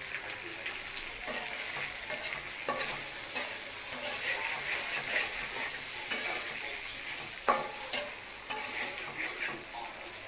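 Spiced meat frying in oil in a black karai, sizzling steadily, while a metal spatula stirs it with irregular scrapes and knocks against the pan.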